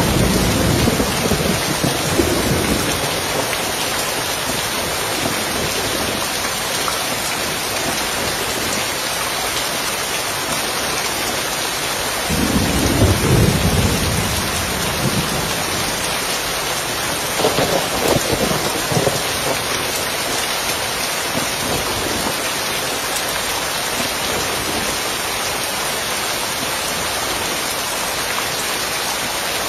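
Steady rain falling on a roof, with low rolls of thunder: one dying away in the first few seconds, another about 12 seconds in, and a shorter one about 18 seconds in.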